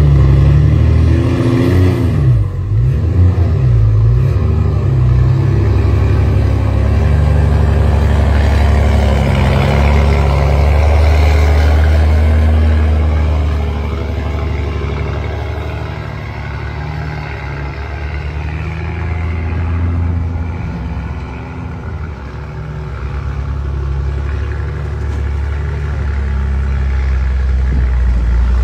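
Heavy Hino dump truck's diesel engine running under load and revving, its pitch rising and falling in the first few seconds. It drops quieter through the middle and builds louder again near the end.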